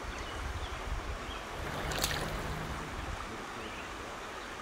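Stream water running steadily over the riffles, with a brief splash about two seconds in as a rainbow trout is let go from the hand back into the current.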